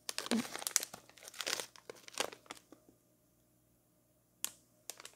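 Holographic foil zip pouch crinkling as it is handled. The rustling comes in a dense run for about the first half, stops for a moment, then a sharp crackle and more crinkling come near the end.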